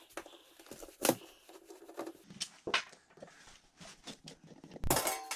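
Screws being backed out of the metal front cover of a Square D QO breaker panel with a screwdriver: scattered small clicks and scrapes, a sharp click about a second in, and a louder metallic clatter near the end.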